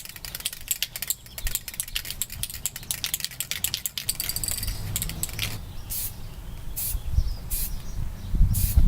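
Aerosol spray-paint can being shaken, its mixing ball rattling rapidly for about four seconds, then four short hisses of spray paint.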